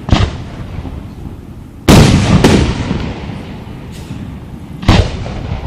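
Aerial fireworks bursting: four sharp booms, the loudest about two seconds in, each trailing off slowly.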